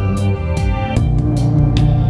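Background music: sustained chords over a bass line, with a sharp percussion stroke about two and a half times a second keeping a steady beat.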